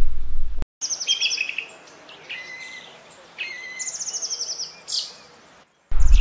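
Small songbirds singing and calling: high chirps and rapid trills, several in a row. A low hum cuts off abruptly under a second in.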